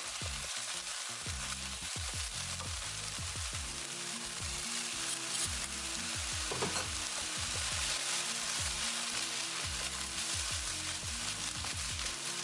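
Chickpeas and chopped vegetables sizzling in hot oil in a wok while being stirred, with background music underneath.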